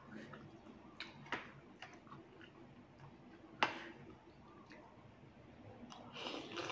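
Metal fork and spoon clicking against the plate as rice noodles are stirred and twirled, a few separate clinks with the sharpest about three and a half seconds in. Near the end, a short slurp as a forkful of noodles is sucked into the mouth.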